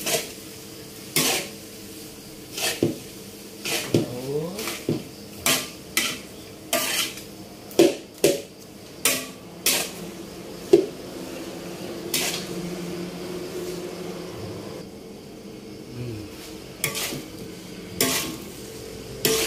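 Metal spatula scraping and striking a large metal wok while stir-frying a big batch of fried rice: sharp clanks about once a second, each leaving the wok ringing, with a lull of a few seconds after the middle.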